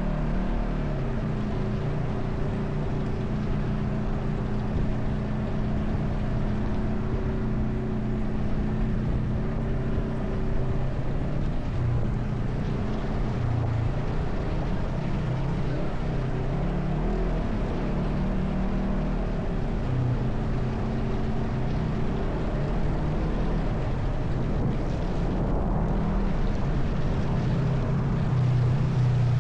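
ATV engine running while riding, its pitch drifting up and down with the throttle over a steady low rumble.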